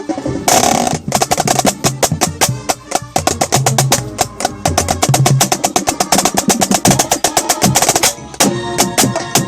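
Drum corps snare drum heard close up, playing a fast, dense passage of rapid strokes and rolls, with the rest of the corps' music running underneath. A bright crash comes about half a second in.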